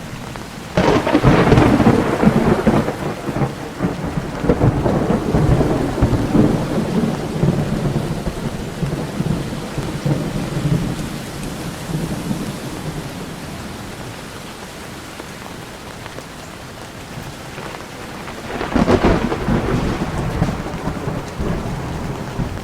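Steady rain with two claps of thunder: a sudden loud crack about a second in that rolls into a long, fading rumble, and a second clap near the end.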